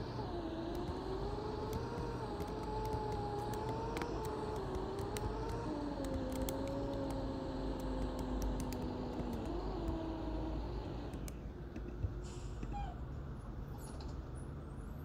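Mercedes-Benz OC500LE bus under way: a low engine rumble with a wavering driveline whine that steps down in pitch about six seconds in, briefly rises again near ten seconds and dies away about eleven seconds in, over scattered clicks and rattles.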